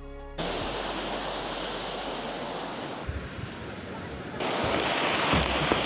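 Surf breaking on a sandy beach, a steady rushing hiss, with wind buffeting the microphone in gusts. Surf and wind grow louder about four and a half seconds in.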